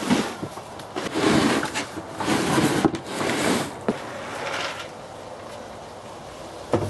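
An old wooden tool chest being shifted and handled, with scraping and knocking in several short bursts about a second apart that die away about two-thirds of the way in.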